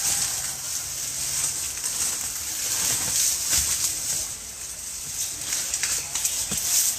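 A few dull strikes of a hand tool chopping at an old tree stump in the ground, over a steady high hiss.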